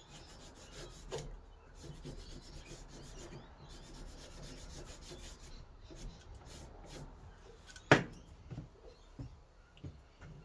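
Scandi-ground knife blade stroked back and forth on a leather strop loaded with polishing compound, a run of soft rubbing strokes that stropps off the last fine burr from the edge. About eight seconds in comes one sharp knock, followed by a few lighter taps.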